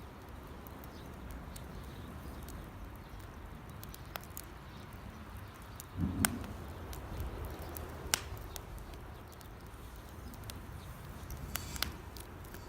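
Wood campfire crackling, with single sharp pops every couple of seconds from moisture-laden firewood, over a low steady rumble.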